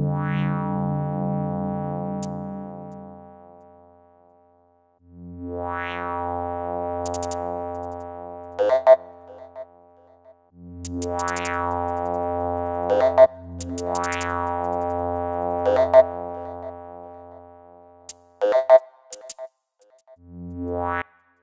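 Ambient electronic music: about five sustained synthesizer chords, each starting suddenly and fading away over a few seconds, with short silent gaps between them. Brief crisp clicks are scattered over the chords.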